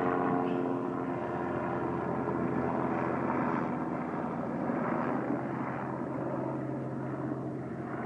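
Aircraft droning steadily as it passes overhead, fading slightly near the end.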